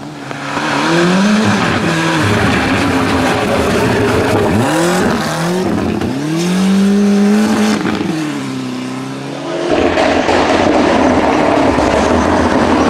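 Ford Sierra Cosworth Group A rally car's turbocharged two-litre four-cylinder engine revving hard, its pitch climbing and dropping again and again through the gears and lifts. About ten seconds in it changes to a louder, steadier engine noise as the car comes on at speed.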